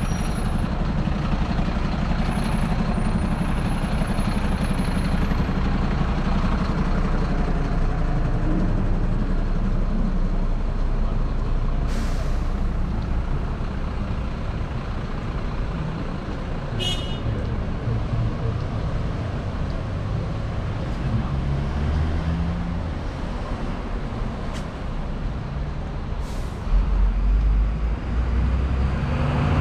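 Road traffic: vehicle engines running and passing, with a heavy vehicle's low rumble, a few brief sharp sounds and a louder low rumble near the end.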